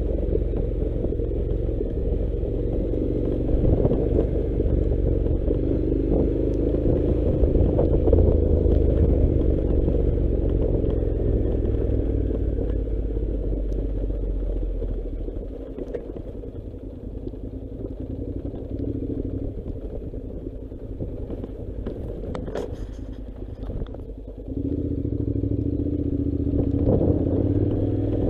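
Honda NC700 motorcycle's parallel-twin engine running at low speed over a rocky dirt track, with loose stones and parts of the bike clattering. The engine sound drops off about halfway through and picks up again near the end, with a couple of sharp knocks in between.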